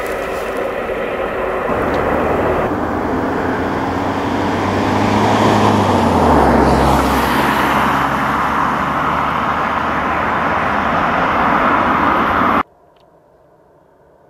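Airbus A380's four Rolls-Royce Trent 900 turbofans at takeoff power as the jet rolls down the runway and lifts off: a loud rushing noise with a low hum that drops in pitch about halfway through. The sound cuts off abruptly near the end, leaving only a faint sound.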